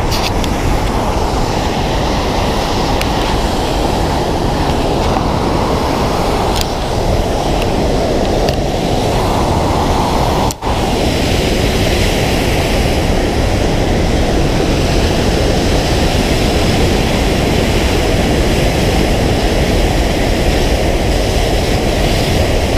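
Steady rushing roar of a waterfall, with wind noise on the microphone. It dips for an instant about ten seconds in.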